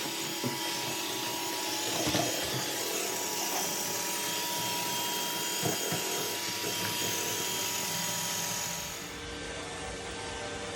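iRobot Roomba 892 robot vacuum running: a steady motor and brush whir with a faint steady hum, broken by a few light knocks as it works. The sound changes near the end.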